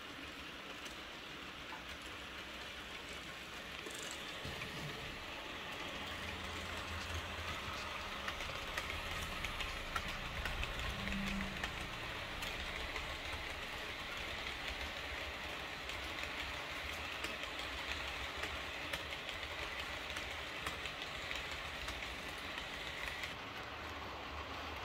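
Model train running on the layout's track: a Piko class 110 electric locomotive hauling ACME passenger coaches, with a steady rolling hiss, fine rapid ticking of wheels over rail joints and a low motor hum. It grows louder a few seconds in as the train draws close.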